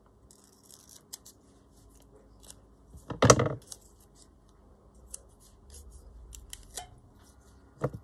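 Scissors snipping a strip of washi tape: short crisp snips and clicks, the loudest about three seconds in, with light rustling as the tape roll is handled.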